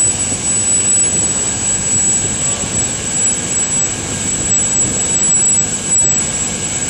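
Steady running noise of a sightseeing boat under way: engine drone mixed with the rush of water and wind, with a thin steady high whine on top.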